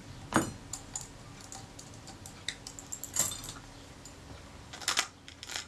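Small metal tools, a jeweller's screwdriver and tweezers, clicking and tapping on the metal body of a Kodak Retina Reflex S camera while a screw is fitted. Scattered sharp clicks, the strongest about half a second in and about three seconds in.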